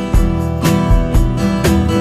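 Background music: a strummed acoustic guitar with a bass line, in a steady beat of about two strums a second.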